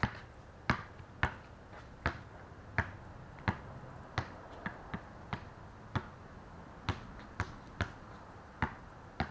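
Basketball dribbled on a concrete driveway: sharp single bounces at a steady pace, roughly one and a half a second.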